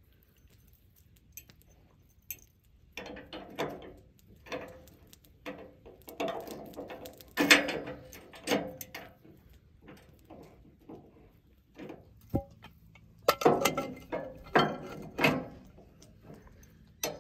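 Support jacks on a Wood-Mizer sawmill trailer frame being worked and cranked down to level the mill, with metal clicking and clanking in two spells. The loudest clank comes about seven and a half seconds in.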